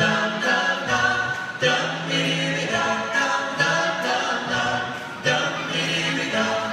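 Doo-wop vocal group of four men singing a cappella in close harmony into microphones, with a bass voice holding the low notes under the higher parts and the chords changing about once a second.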